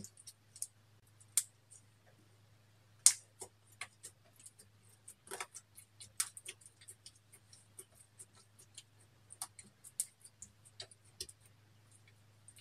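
Metal-tipped tool scraping and crumbling pressed highlighter powder in its compact: a run of short, irregular scratchy clicks, the loudest about three seconds in, over a faint low hum.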